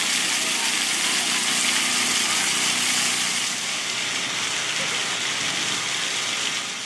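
Plaza splash-pad fountain jets spraying up from the paving and splashing down, a steady hiss that eases a little after about three and a half seconds, with crowd chatter underneath.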